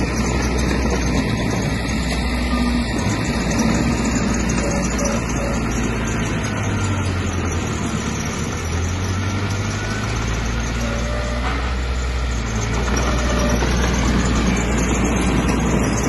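Heavy earthmoving machine's diesel engine running steadily. Its revs rise for several seconds in the middle, then settle back.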